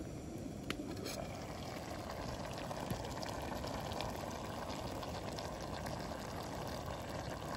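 Chicken fajita filling sizzling in a pan over a campfire: a steady hiss that swells about a second in, with a couple of small pops.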